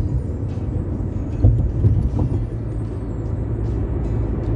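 Steady low rumble of a car's road and tyre noise heard from inside the cabin at expressway speed, with a couple of brief low thumps about a second and a half in.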